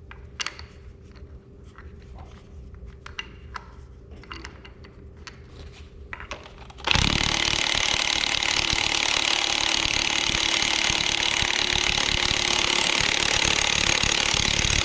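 Impact wrench hammering a bolt home on the front of an Oliver 1855 engine's crankshaft. It starts abruptly about seven seconds in and runs steadily to the end, as the bolt is driven until it bottoms out. Before it come only light clicks and taps of the bolt and parts being handled.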